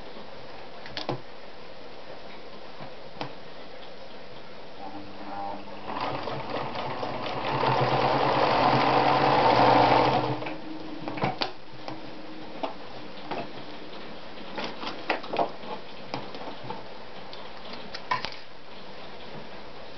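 Anker Automatic RZ sewing machine stitching, picking up speed for about five seconds and growing louder, then stopping suddenly about halfway through. Before and after the run there are scattered light clicks and knocks.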